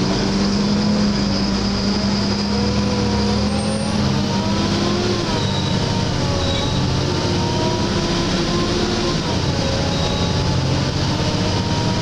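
A Volvo B7LA articulated bus's six-cylinder diesel and its hoover-like cooling fan, heard from inside the passenger saloon while the bus drives: a steady rushing drone with engine tones that drift up and down, and a low hum that stops a few seconds in.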